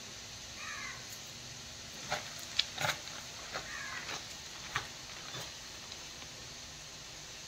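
Two short animal calls, one near the start and one about halfway, each sliding down in pitch. Between them come several sharp clicks and knocks, the loudest about two and a half seconds in.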